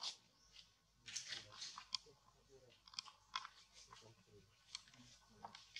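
Near silence with faint, irregular clicks and crackles that come in small clusters about a second apart.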